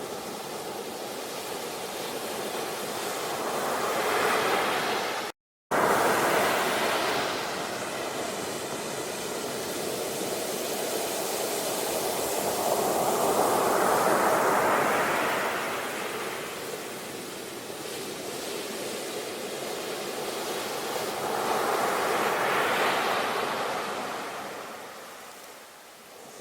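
Sea waves surging and receding, swelling three times in slow washes of surf. The sound drops out completely for a split second about five seconds in.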